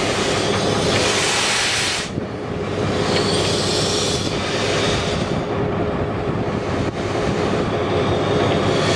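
NZR Jb-class steam locomotive 1236 rolling slowly while being shunted: a steady rumble and rattle of wheels and running gear. Two spells of hissing come over it, one in the first two seconds and another about three to four seconds in.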